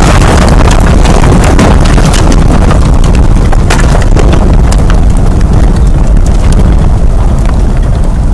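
Very loud, steady low rumble with a dense scatter of sharp crackles and knocks: a tornado roar sound effect with debris impacts.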